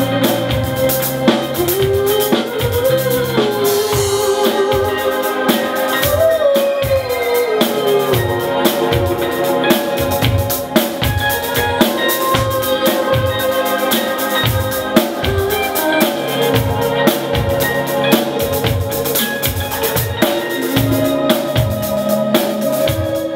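A band playing live, with a drum kit keeping a steady beat of bass drum and snare under a melodic line that glides up and down in pitch.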